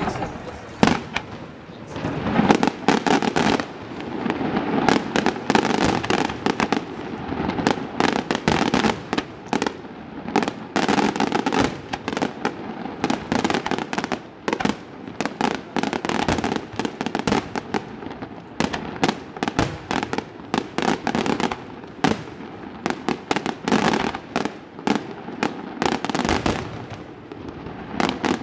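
Aerial firework shells bursting in rapid succession: a continuous barrage of sharp bangs, tens of reports packed closely together.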